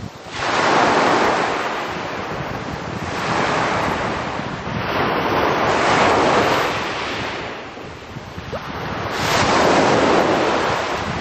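Small sea waves breaking and washing up a pebble beach, the surf swelling and ebbing about four times, with the loudest breakers near the start and near the end.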